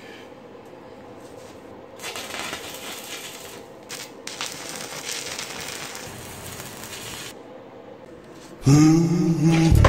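Arc welder crackling and hissing on steel tube for about five seconds, from about two seconds in, with a few sharp clicks partway through. Music starts near the end.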